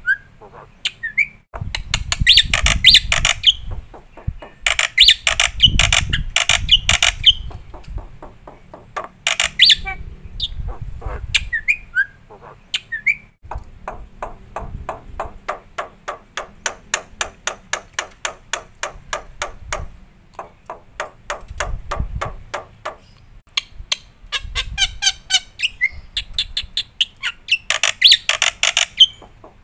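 Black-winged starling (jalak putih) singing vigorously: loud harsh screeching phrases come in bursts, and in the middle there is a long stretch of rapid, evenly spaced clicking chatter.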